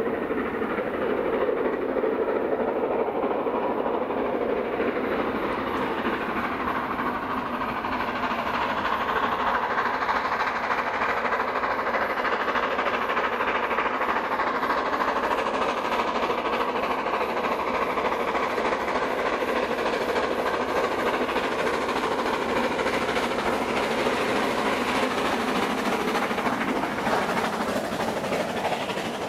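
GWR Castle Class 4-6-0 steam locomotive 5043 working hard up Hatton Bank with a passenger train, its exhaust steady and drawing closer. Near the end the coaches roll past with wheels clicking over the rail joints.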